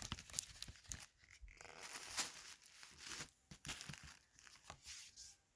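Faint paper rustling and scattered small clicks of a picture book being handled.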